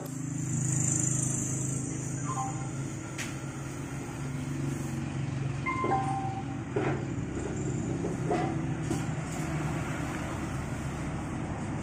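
A steady low hum like a motor running, with a few faint short tones and light taps.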